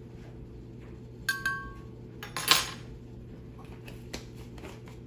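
Small metal spoon clinking against the blender jar: a tap with a short ringing tone about a second in, then a louder sharp clack about halfway through, as the spice is tapped off the spoon.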